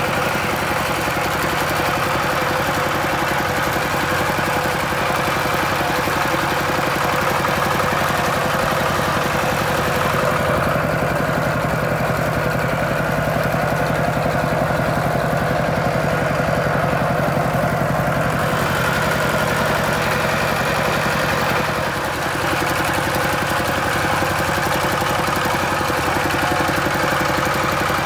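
Single-cylinder diesel engine of a Kubota two-wheel walking tractor running steadily as the tractor is driven along.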